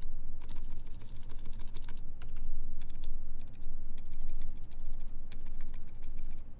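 Fast typing on a Keycult 2/65 mechanical keyboard with lubed Silent Alpaca switches, GMK keycaps and an aluminium plate: a quick run of quiet, damped keystrokes that stops just before the end.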